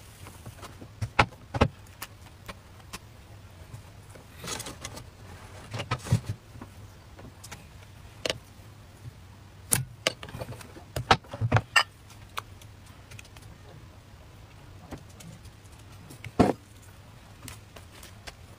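A dozen or so irregular sharp clicks and light knocks from handling a small electric crepe maker and thin pancake wrappers on a wooden board, against a steady low background hum.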